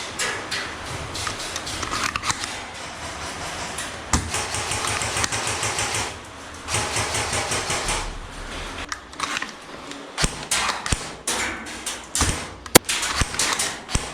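Airsoft guns firing: runs of rapid automatic fire, each a fast string of sharp clicks, in the first half, and a few separate single shots later on.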